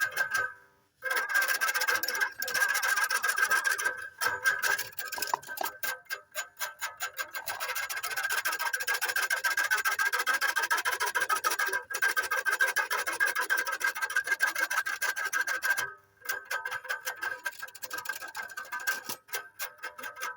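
A cowbell rung rapidly and continuously, its clapper clattering many times a second over a steady metallic ring. It breaks off briefly about a second in and again near 16 s.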